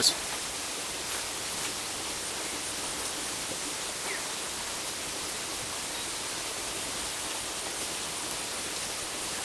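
Steady, even rush of a rocky mountain river or stream.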